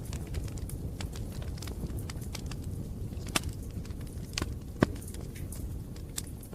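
Campfire burning: wood crackling with irregular sharp pops over a steady low rumble, the loudest pop a little before five seconds in.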